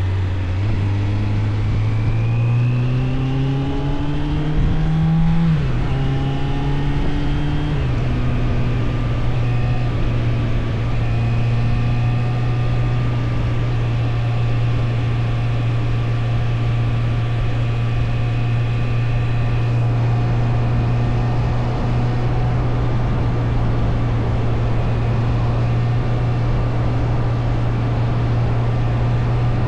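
Suzuki GSF600 Bandit's inline-four engine pulling up through the gears: it revs up, drops at a gear change about five seconds in, revs up again, shifts about eight seconds in, then runs at a steady cruise. Wind rush goes with the engine.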